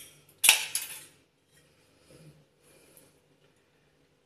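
A sharp metallic clink of a spoon against kitchenware about half a second in, with a lighter clink just after, then only faint handling sounds.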